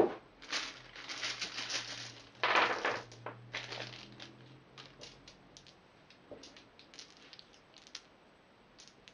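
A sharp click, then a plastic bag crinkling as a bag of small board-game dice is tipped out onto a cloth-covered table. Scattered light clicks follow as the dice are picked up and handled.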